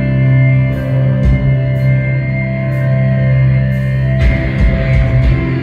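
Instrumental post-rock band playing live: electric guitars holding sustained, ringing notes over drums, with cymbal strokes about once a second. The drums and low end grow busier and fuller about four seconds in.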